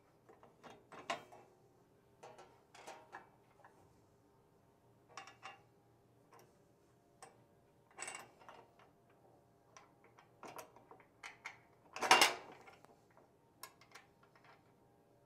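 Steel bolts, nuts and a hinge plate clicking and clinking against the steel mower deck as they are fitted by hand, in scattered irregular taps, with one louder clank late on.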